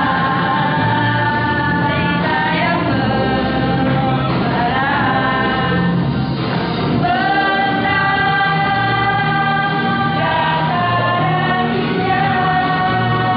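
Choir rehearsing a slow song, voices singing together on long held notes that slide to new pitches a few times.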